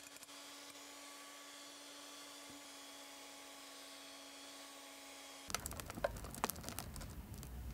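Panasonic electric hand mixer running steadily as its beaters whip egg whites into meringue in a glass bowl. A little over five seconds in the sound turns louder and rougher, with the metal beaters clicking and clinking against the glass.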